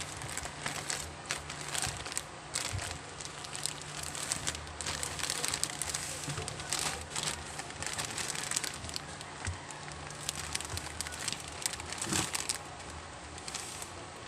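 Packaging being handled and unwrapped: irregular crinkling, rustling and small clicks and taps, over a faint steady low hum.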